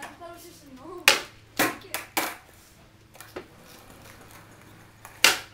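Skateboard on a concrete floor: a quick run of sharp clacks and knocks about a second in, as the board is popped and lands. There is a single lighter knock just past three seconds and a loud clack near the end.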